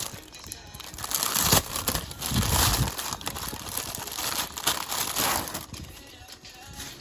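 Packaging crinkling as it is handled, in two louder spells of rustling.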